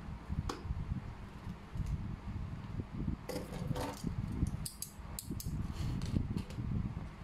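Clear packing tape being pulled off its roll with a ripping screech about three seconds in, followed by a run of sharp clicks and crackles as the tape and cardboard box are handled, over a steady low rumble.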